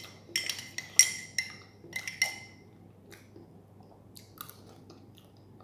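Metal teaspoon stirring a drink in a ceramic mug, clinking against its sides: about eight ringing taps in the first two and a half seconds, then only a few faint ticks.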